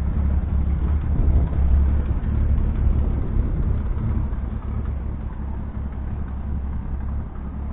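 An engine running steadily at low revs, a low rumble that eases off slightly toward the end.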